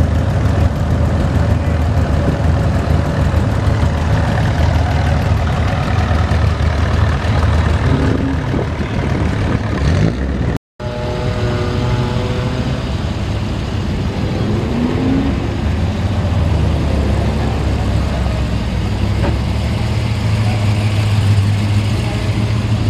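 Several classic American cars' engines running at idle as the cars creep past one after another, with short rising revs now and then. The sound cuts out for a moment near the middle.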